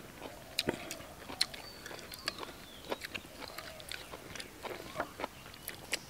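Close-up chewing of a red ant egg dish, with wet mouth clicks and a spoon clinking and scraping in a ceramic bowl, heard as irregular short sharp clicks.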